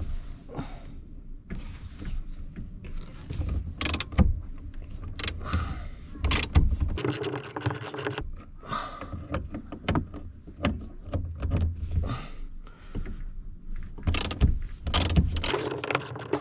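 Ratchet wrench with a 12 mm socket clicking as the car door's bolts are worked loose, in quick runs of rapid clicks about halfway through and near the end, among knocks of the tool on metal.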